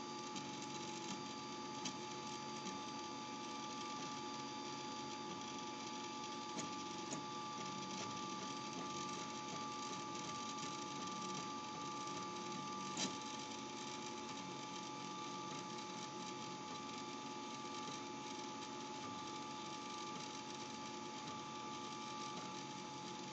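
3D printer printing: its stepper motors whir and buzz in a busy, shifting pattern as the print head moves, over a steady hum with two held tones. There are a few light clicks, and one sharper click about 13 seconds in.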